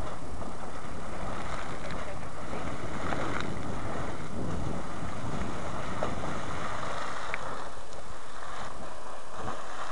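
Sawmill and Old Tardy geysers erupting: a steady rush of splashing water, with wind buffeting the microphone.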